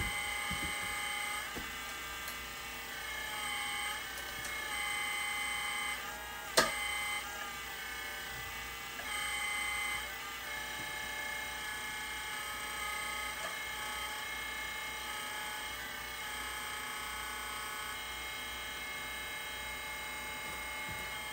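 Electric hydraulic pump of a Kabolite K988 1/14-scale RC wheel loader running with a steady whine while the boom and bucket are worked, growing louder several times as the rams move under load, on its first test after being filled with hydraulic fluid. A sharp click about six and a half seconds in.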